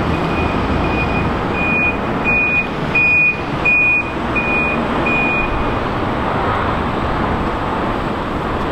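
Vehicle reversing alarm beeping at an even pace, about three beeps every two seconds, growing louder and then fading out about six seconds in, over a steady background rumble and hiss.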